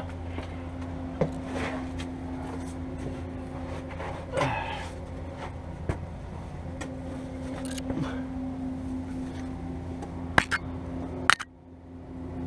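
Scattered knocks and clicks of a battery cable being worked along under a dump truck's frame, over a steady low hum that drops out briefly near the end.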